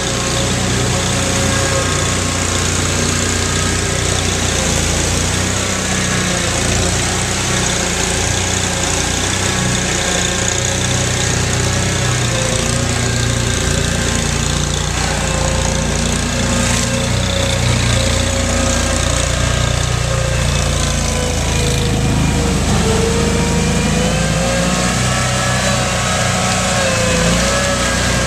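Engine of a Mudd-Ox amphibious 8x8 ATV on Adair tracks running as it crawls through mud, its pitch wavering up and down with the throttle. Other amphibious ATV engines run alongside.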